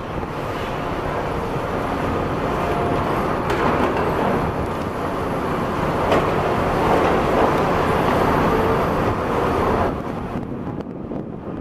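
Heavy tracked demolition excavators at work: a dense, steady mechanical din of diesel engines and hydraulics mixed with the rumble of concrete rubble. It grows louder for a few seconds past the middle, then eases off near the end.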